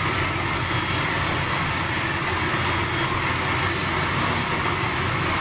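Twin turboprop engines and propellers of an ATR 72-500 running steadily, heard inside the cabin as an even drone with a low hum underneath.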